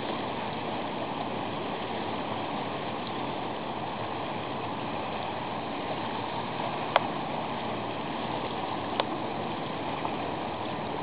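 Steady rush of choppy sea water washing against a concrete breakwater, with two short sharp clicks about seven and nine seconds in.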